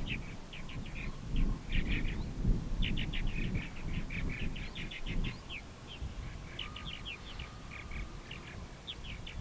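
Small birds chirping: many short, high chirps in quick runs, over a low, uneven rumble.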